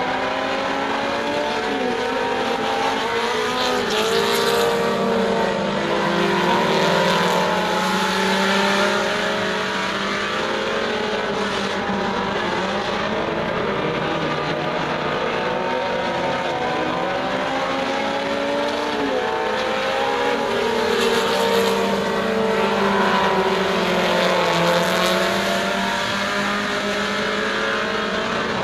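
A pack of four-cylinder Super Stock dirt-track race cars lapping together, several engines revving up and easing off through the turns. The sound swells louder twice as the pack comes round.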